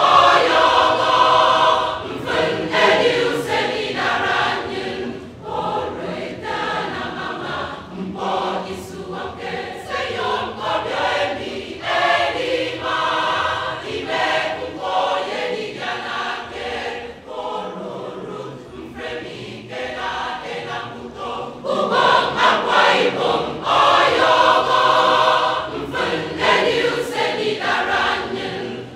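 Mass choir singing a choral piece in many voices, loud and full near the start, softer through the middle, then swelling loud again about three-quarters of the way through.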